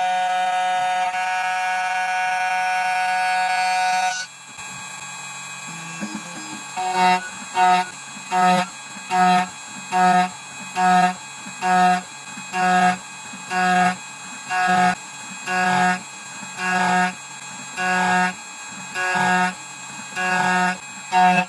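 CNC key-cutting machine running: a steady motor whine for about four seconds, then after a short lull a whine that pulses on and off at the same pitch about once a second.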